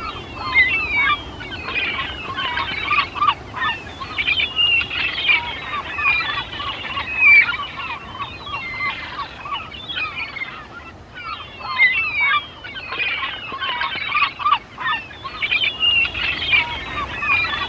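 A flock of birds calling all at once: a dense, continuous chatter of short overlapping chirps and squawks.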